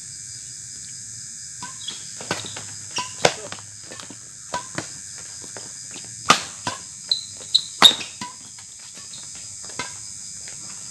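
Badminton rackets striking a shuttlecock again and again in a fast doubles rally, the hardest hits about six and eight seconds in. A steady chirring of insects runs underneath.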